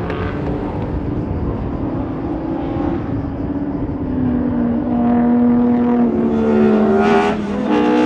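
Ford Escort Mk1 race car accelerating hard toward and past, its engine note climbing steadily for a few seconds and getting louder, with an upshift near the end. Another car's engine fades out in the first few seconds.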